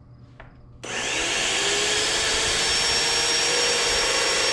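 Graco X7 airless paint sprayer switched on about a second in: its motor and pump spin up with a rising whine, then run steadily, priming.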